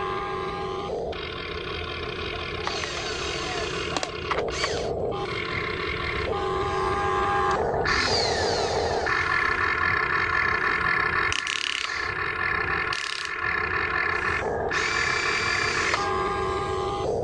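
Huina RC excavator's small electric motors whining as the boom, arm and bucket move, the pitch switching every second or two as different motors start and stop.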